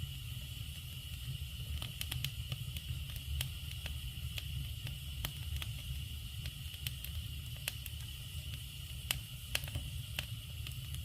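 Wood fire crackling: scattered sharp pops, irregularly spaced, over a steady hiss and a low rumble.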